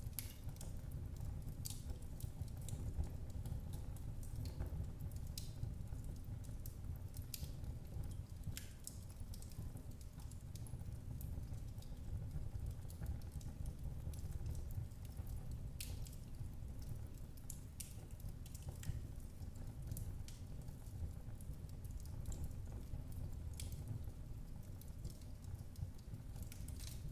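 Wood fire crackling in a fireplace: irregular small pops and snaps over a low, steady rumble of the flames.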